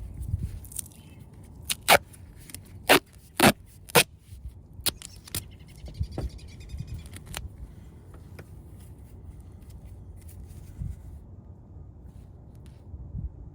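Sharp clicks and taps of hand work with tools and plastic parts: about four loud clicks between two and four seconds in, then lighter clicks and a short rattle, over a low rumble.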